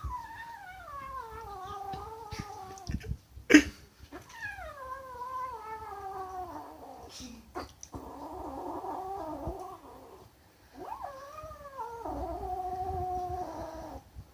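A kitten gives long, drawn-out growling yowls, about four in a row, each slowly falling in pitch, one of them rougher: a food-guarding growl. A single sharp knock comes about three and a half seconds in.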